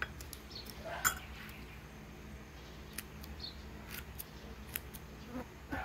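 Kitchen scissors snipping through soft fermented mustard greens (burong mustasa) in a bowl: irregular short crisp snips, the sharpest about a second in.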